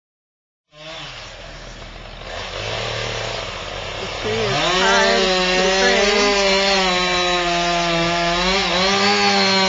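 A chainsaw starting up and revving, its pitch stepping up twice, then running at full throttle with a steady high drone that dips and wavers slightly as it works.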